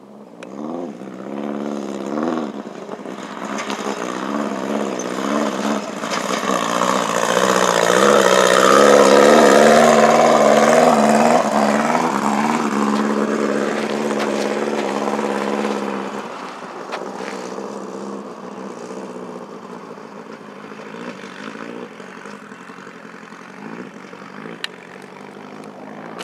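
An off-road race vehicle's engine revving up and down unevenly as it comes closer, loudest about a third of the way in, then fading away into the distance.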